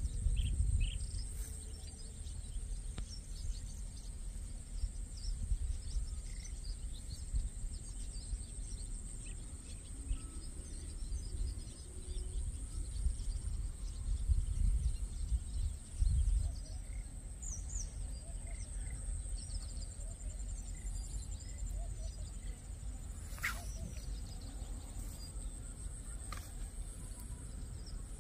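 Wind rumbling on the microphone, with scattered bird chirps and a steady high-pitched insect buzz. A single sharp click about two-thirds of the way through.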